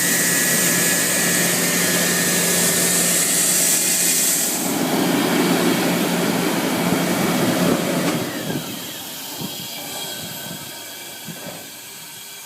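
LeRoi air compressor running loud and steady with a strong hiss of air; after about eight seconds it winds down in pitch and the level drops to a quieter hiss.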